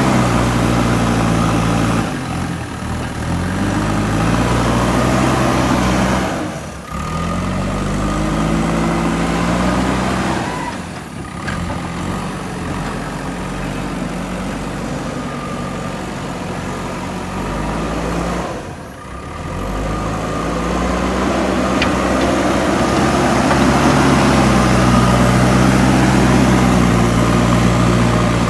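JCB 3DX backhoe loader's diesel engine running, its pitch rising and falling repeatedly as it is revved up and eased off while working. There are several brief dips in the sound.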